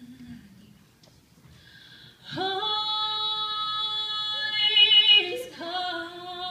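A woman singing unaccompanied into a microphone. A soft low note fades out just after the start, and after a short pause she holds one long high note for about three seconds, swelling near its end, then steps down to a second held note.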